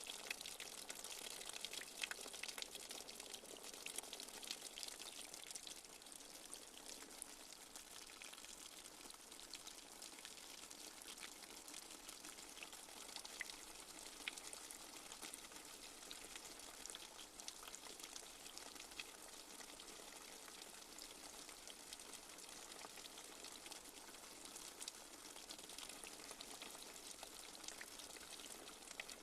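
Light rain falling steadily, a faint even patter with many small drips.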